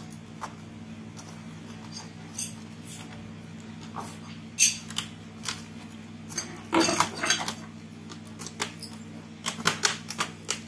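Irregular clicks and taps of a Compaq Presario C700 laptop's plastic parts and connectors being handled and fitted back together, with a few louder clicks about halfway and near the end.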